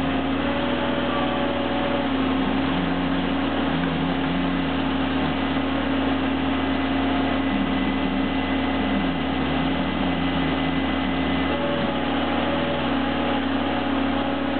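Skid steer loader's engine running steadily, driving a hydraulic auger attachment that bores a post hole.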